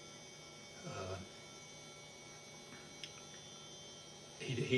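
Steady electrical hum made of several level tones, broken by a short voice sound from a man about a second in and a louder one near the end.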